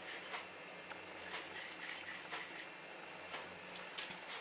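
Faint handling noises of hands rolling soft cookie dough into balls and setting them down on parchment paper: a few soft taps and rustles scattered over a quiet background.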